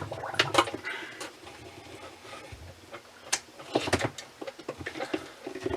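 Scattered knocks, clunks and scrapes from handling a pedestal sump pump as it is worked back into its pit; the pump motor is not running.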